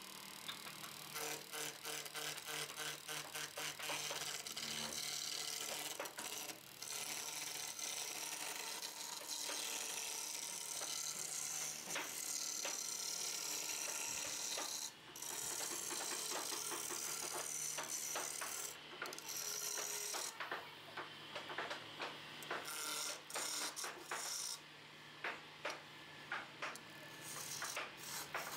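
Wood lathe spinning a wooden chair leg while a hand chisel cuts it: a steady hissing cut over a low motor hum. The cut breaks off briefly a few times and more often near the end as the tool lifts away.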